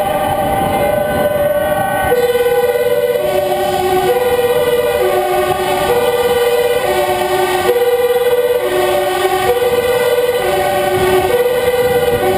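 Dutch emergency-vehicle two-tone sirens sounding in convoy, two at once, each alternating steadily between a high and a low note. A louder, lower-pitched one joins about two seconds in, switching notes roughly once a second.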